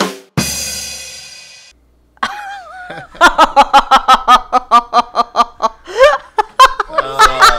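A short drum-and-cymbal sting: a sharp hit, then a ringing cymbal crash that fades over about a second, the comedy rimshot after a punchline. About three seconds in, loud laughter follows in quick, rhythmic bursts.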